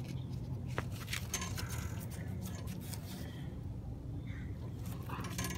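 Scattered soft scrapes and crunches in trampled snow over a steady low hum.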